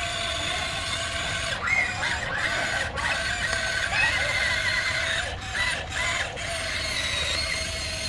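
Huina RC excavator's small electric motors and plastic-and-metal gearboxes whirring, a high mechanical whine that rises and falls in pitch several times as the machine drives on its tracks and turns.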